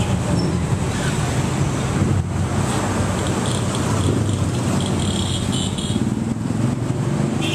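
Street traffic noise: a steady rumble of vehicle engines running close by, with a few brief higher-pitched sounds in the middle.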